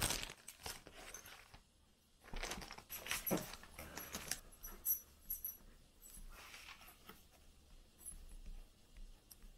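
A marker pen handled and scratched on paper at a table: scattered clicks, taps and short scratchy rustles, strongest near the start and about two to three and a half seconds in.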